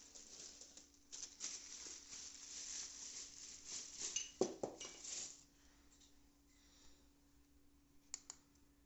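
Packaging being handled: a crinkling rustle for about five seconds, with a couple of knocks about four and a half seconds in, then two light clicks near the end.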